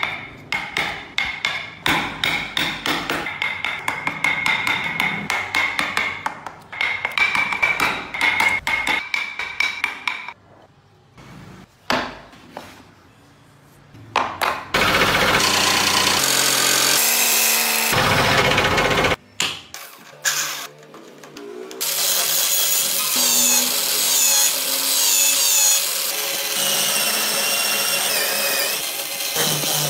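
A wood chisel cutting into soft wood in quick repeated strokes for about ten seconds, then a few quieter seconds and a loud power tool running for about four seconds. From about 22 s, a corded drill clamped in a jig as a makeshift lathe spins a small wooden wheel while a cordless drill bores into it, both motors running steadily.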